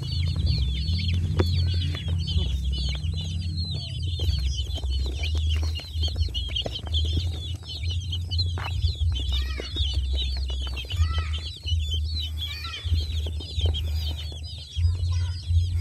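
A flock of young chicken chicks peeping constantly, many short, high, falling peeps overlapping each other, over a low rumble.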